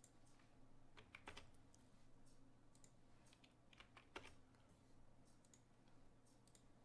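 Faint computer keyboard keystrokes and clicks, scattered in small groups, as numbers are typed into spreadsheet cells, over a low steady hum.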